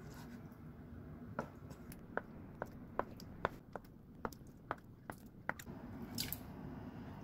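Chef's knife slicing through a block of acorn jelly and tapping on a wooden cutting board, a sharp tap about every half second from about a second in. Near the end, a short swish as the slices are slid off the board into a glass bowl.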